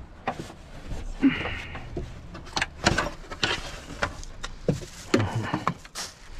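Knocks, clanks and rattles of a removed wiper linkage and cowl bracket being handled and set down on a car seat: about eight sharp knocks, irregularly spaced, with handling noise between them.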